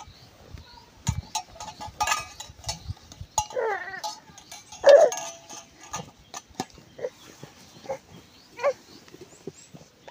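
Several short animal cries, wavering in pitch; the loudest comes about five seconds in, with scattered clicks and knocks between them.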